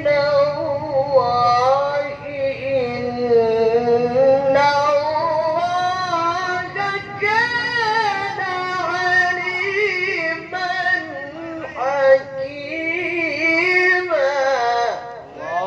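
A man reciting the Quran in the melodic tilawah style through a microphone, his voice very high. He holds long melismatic phrases whose pitch winds up and down, climbing highest about two thirds of the way in, with only short breaths between.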